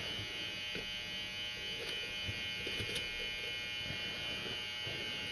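Steady electrical buzz with a high whine, with a few faint light ticks from small lock pins and tools being handled at a deadbolt cylinder during rekeying.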